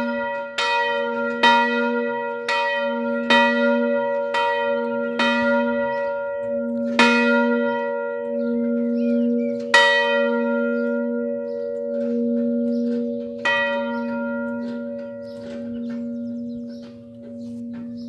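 Large bronze church bell, cast in 1972, swinging and coming to rest: its clapper strikes about once a second at first, then further and further apart, the last strike about three quarters of the way through. After that only the bell's deep, wavering hum remains, slowly fading.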